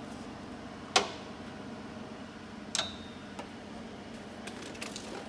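Two sharp metal knocks about two seconds apart, the second ringing briefly, then a few light ticks near the end, over a steady low hum.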